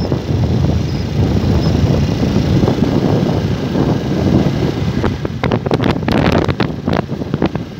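Wind rushing over the microphone over the low rumble of a vehicle moving along a dirt road. From about five seconds in there is a run of sharp clicks.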